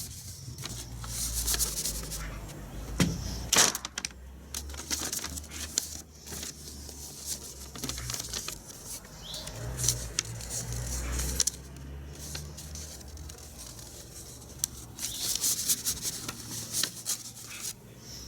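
A folded A4 sheet of paper being handled and rustled, with scattered crackles and a few sharper snaps of the paper.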